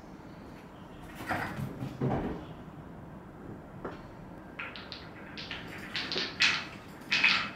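Wooden ball-track tower cat toy, its balls rolling and clacking in the tracks as a kitten bats at them, in short quick runs several times a second that grow louder toward the end. Two dull knocks come earlier, about one and two seconds in.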